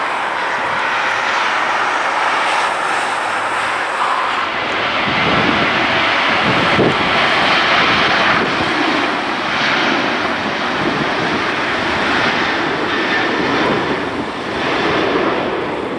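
Airbus A320neo's Pratt & Whitney PW1100G geared turbofans making a steady rushing jet noise as the airliner rolls along the runway. The noise swells about five seconds in and stays louder for a few seconds before easing.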